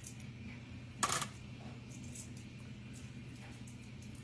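Pennies dropped one at a time into a floating tin foil boat, clinking onto the pennies already in it. One loud clink comes about a second in, followed by a few fainter ones.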